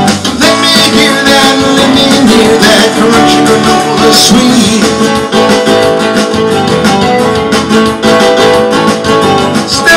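Roundback acoustic-electric guitar strummed steadily in an instrumental passage of a pop song.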